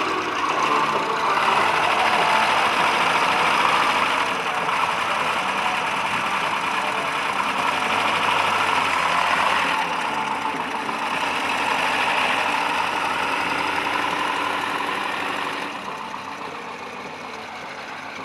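Motor trike engine running steadily, dropping in level near the end.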